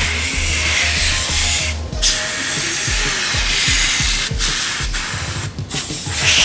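Compressed air from an air-compressor blow gun hissing in loud blasts over the mining rig's components, stopping briefly about two seconds in and a few times near the end as the trigger is released.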